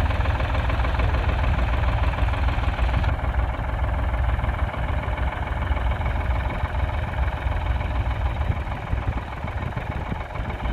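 1968 Ford 4000's 3.3-litre three-cylinder diesel engine running steadily, growing gradually quieter towards the end.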